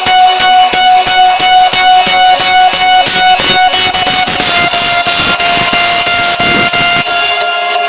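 Loud background music with a fast, even beat and sustained instrumental tones.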